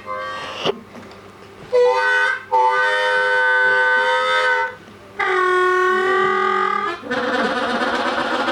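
Harmonica playing a train imitation: a few long held chords with short pauses between them, then, about seven seconds in, a fast, even chugging rhythm of chords starts up.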